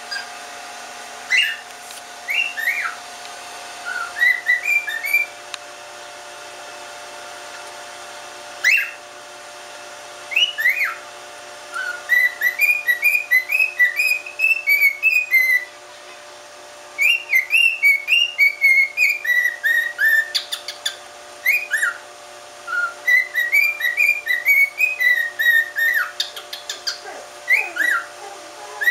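Cockatiel whistling: quick strings of short rising and falling notes, the same phrase repeated several times with pauses between.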